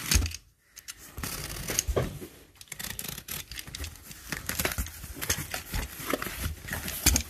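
Utility knife blade slicing through packing tape and cardboard on a shipping box, with irregular scraping and rustling as the cardboard flaps are handled and pulled open.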